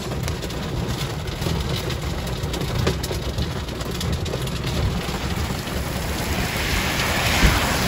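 Heavy rain on a car's windshield and body, heard from inside the car over the low rumble of the car on a wet road. The rain grows louder near the end, and a single thump comes shortly before the end.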